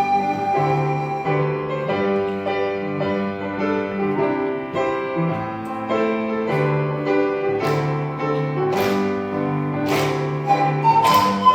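Instrumental hymn accompaniment led by piano chords over a steady bass line, with sharp hits in the last few seconds, in a passage between the panflute's phrases.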